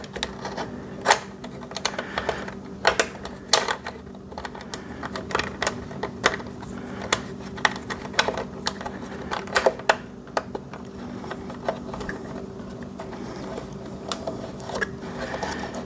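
Irregular light clicks and clacks of the welder's wire-spool hub parts (tension spring and retaining knob) being fitted and turned on the spool spindle by hand, over a steady low hum.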